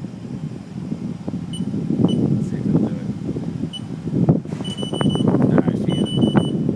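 Electronic beeps at one high pitch from a CNC lathe's control, first a few short single blips and then three longer beeps near the end. Underneath runs a steady rumble of machine and shop noise with scattered knocks.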